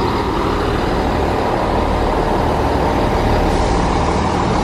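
Transport for Wales diesel multiple-unit train running past close by as it pulls out of the station: a steady engine hum over the rumble of the carriages rolling along the track.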